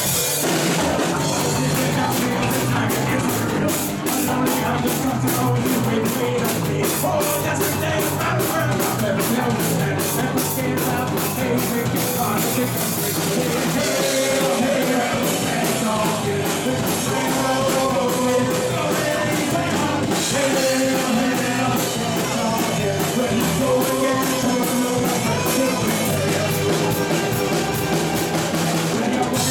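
Live rock band playing: electric guitar and a drum kit keeping a steady beat, with a man singing lead vocals into a microphone.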